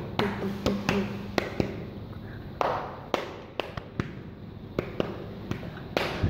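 Playing cards being handled and stood upright on a carpet: irregular light taps and clicks as cards are pulled from the deck and set down, with a short rustle about two and a half seconds in.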